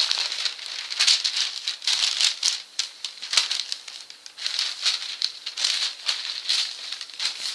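Stiff paper sewing pattern rustling and crinkling in irregular bursts as it is handled and folded by hand.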